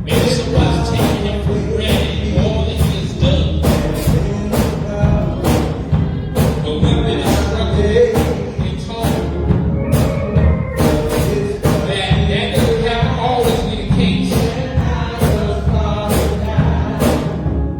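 Gospel music from a church band: drums keep a steady beat under sustained instrumental chords.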